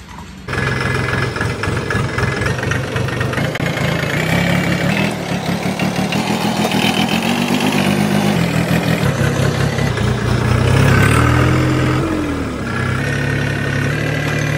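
Swaraj 744 XT tractor's three-cylinder diesel engine running as the tractor is driven, coming in abruptly about half a second in, with a brief rise and fall in pitch about eleven seconds in.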